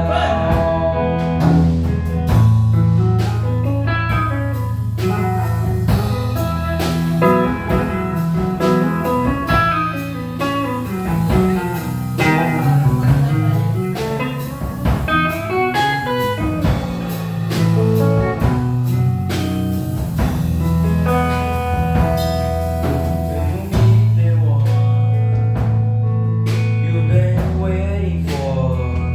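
A band playing a blues number: guitar over a steady bass line, with drums keeping time.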